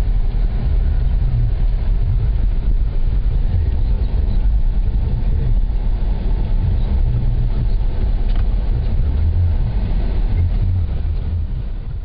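A car's engine and tyres on a snow-covered road, heard from inside the cabin as a steady low rumble that eases off near the end.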